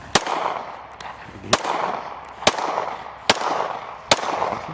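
Gunshots from a firearm aimed at a paper target: five shots fired one after another, about a second apart. Each shot has a short echoing tail.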